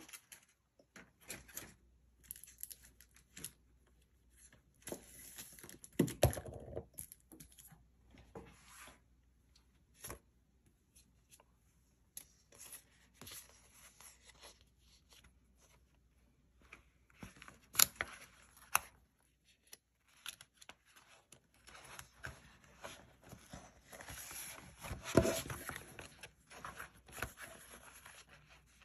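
Paper sticker sheets and a clear plastic zipper bag being handled: intermittent rustling and crinkling of paper and plastic with small clicks, and a few louder crackles.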